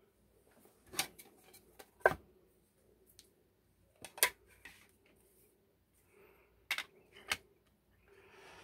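Sharp metallic clicks and taps from handling a picked Abloy Exec disc-detainer lock cylinder and a wire pick. There are about five separate clicks, the loudest about two seconds in.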